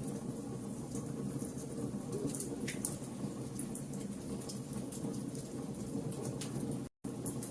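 Fire crackling: frequent small pops and crackles over a steady low rumble. The sound cuts out completely for a split second near the end.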